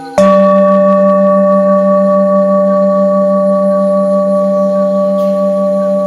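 Himalayan singing bowl struck once with a mallet, then ringing on with a deep hum and several higher overtones that waver slowly as they fade.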